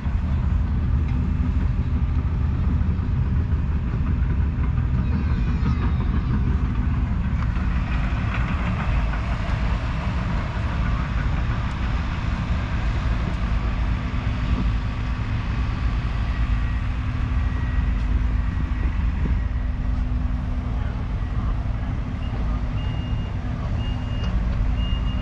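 Low, steady outdoor rumble with a faint engine hum under it. Near the end a vehicle's reversing alarm beeps in short, evenly spaced pulses.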